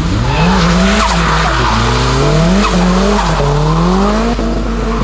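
Nissan S14A's turbocharged SR20DET four-cylinder revving up and down about four times as the car drifts, over the noise of its tyres sliding on wet tarmac.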